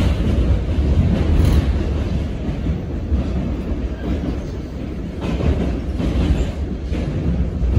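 Ride noise inside a moving R68 New York City subway car: a steady low rumble of steel wheels on the rails, broken by a few brief bursts of clatter.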